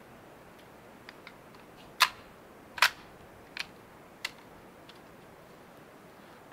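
A few sharp pops and clicks over a faint steady hiss, the loudest two about two and three seconds in, followed by two smaller ones.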